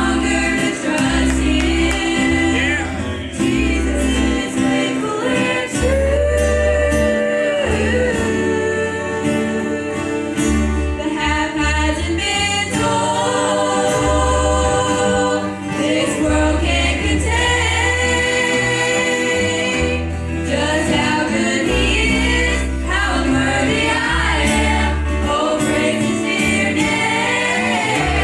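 Gospel singing by a small group of voices with instrumental accompaniment, over a steady bass line.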